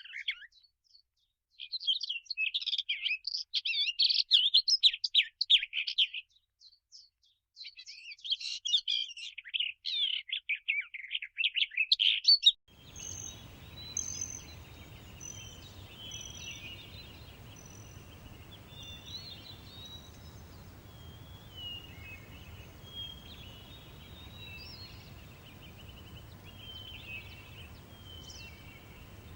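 Bluebirds chirping in quick, dense runs, twice, with a short gap between. About halfway through this gives way to a meadow ambience: a steady light breeze with scattered, fainter bird calls.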